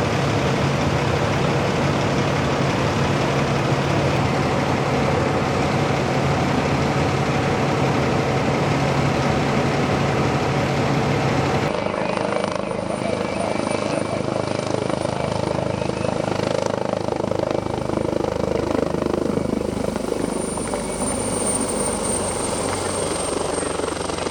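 Firefighting helicopter running overhead, a steady rotor and engine noise that continues throughout. The sound changes abruptly about halfway through, becoming thinner and quieter in its low hum.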